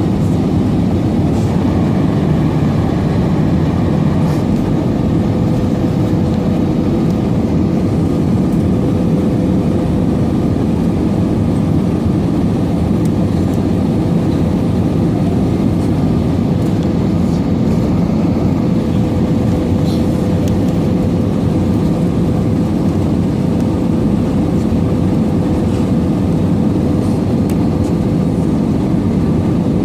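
Steady cabin noise inside an Airbus A320 airliner in flight: a loud, even rumble of engines and airflow with a constant hum held at one pitch.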